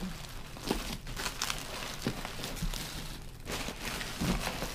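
Bubble wrap and packing material rustling and crinkling as it is handled and pulled out of a cardboard box, in scattered irregular crackles.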